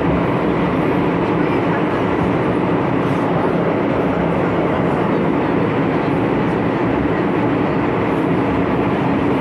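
MTR M-Train electric multiple unit running at speed, heard from inside the car: a steady rumble of wheels on rail with a faint low hum running through it.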